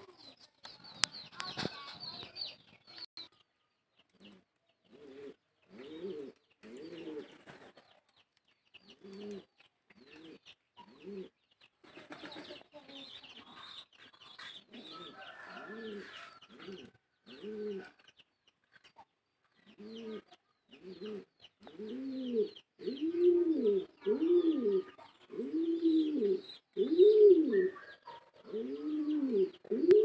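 Rock pigeon cooing: short coos that rise and fall in pitch, coming in irregular runs and then louder and about one a second over the last ten seconds, with fainter high chirping in between.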